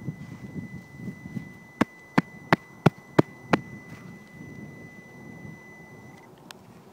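A metal detector giving a steady high electronic tone that cuts off near the end. About two seconds in come six sharp taps, about three a second, louder than the tone.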